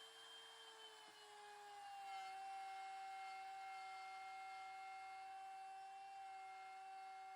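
Faint, steady whine of a small electric motor running. Its pitch drops a little during the first two seconds, then holds.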